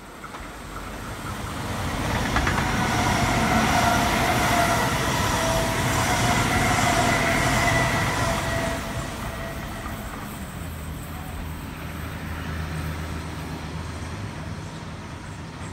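Sydney Trains Waratah (A set) electric double-deck passenger train passing close: wheels rumbling on the rails with a steady whine over it, building over the first few seconds, loudest for several seconds, then fading after about eight seconds. A low steady hum remains near the end.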